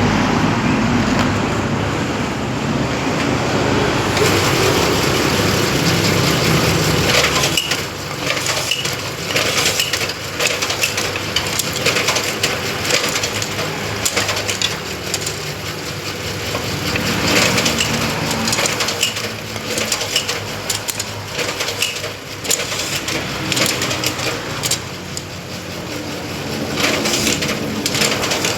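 Bamboo satay-skewer machine running, splitting and shaving bamboo into skewer sticks, with a dense, continuous crackling of splintering bamboo over the motor's hum.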